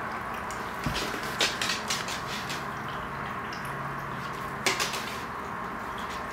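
Steady hiss of aquarium water moving, with a few sharp drip-like clicks about a second in and again near five seconds.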